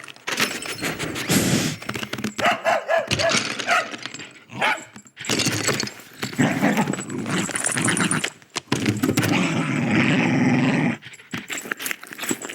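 A dachshund barking and yipping in short clusters, with stretches of noisy scuffling between them.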